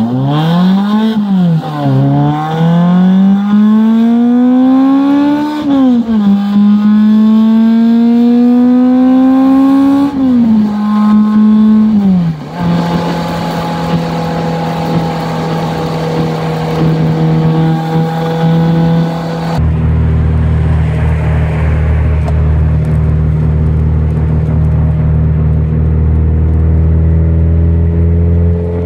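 BMW M42 1.8-litre four-cylinder engine of a 1991 BMW 318is, heard from inside the cabin, pulling through the gears. Its pitch climbs and then drops at each upshift three times, drops again, and settles into a steady cruise. About two-thirds of the way in, a low road rumble rises under the engine note.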